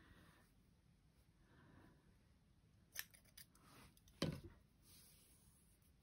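Scissors snipping, most likely cutting a length of embroidery thread: one sharp snip about three seconds in and a fainter one just after, then a heavier knock on the tabletop a little past four seconds.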